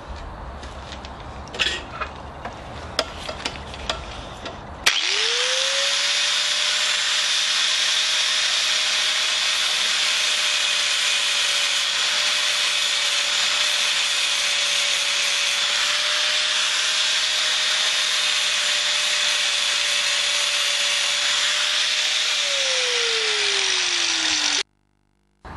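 Light handling clicks, then an angle grinder switches on about five seconds in. Its motor quickly rises to a steady high whine over a loud hiss and keeps running. Near the end the whine drops in pitch, and the sound cuts off abruptly.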